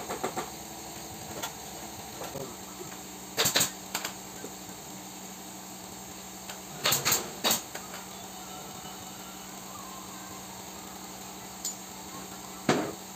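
Pneumatic staple gun clicking off a few quick shots at the start. A handful of loud sharp snaps follow in clusters: two about three and a half seconds in, three around seven seconds, and one near the end, over a steady low hum.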